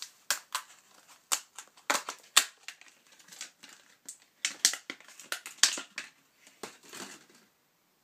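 An irregular string of sharp plastic clicks and crinkles from hands handling a memory module and its plastic packaging, dying away about seven and a half seconds in.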